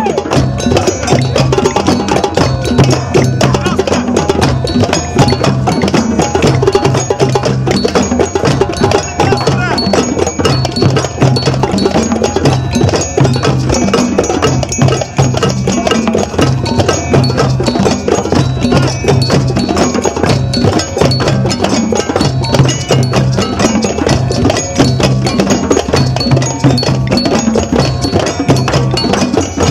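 A large group of djembes and other hand drums playing together in a steady rhythm, with regular deep bass strokes and a metal bell ringing over the drumming.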